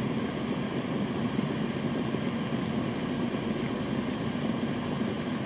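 Electric kettle at a full boil, a steady rushing rumble of water just before it switches off.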